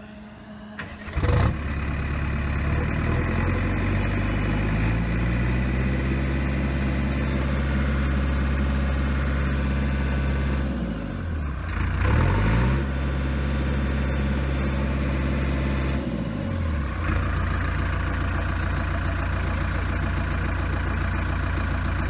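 JCB 448 4.8-litre naturally aspirated four-cylinder diesel engine of a backhoe loader starting about a second in, its revs rising over the next few seconds. Its revs dip and climb again briefly about halfway through, then drop near the end of the third quarter, and the engine settles to a steady idle.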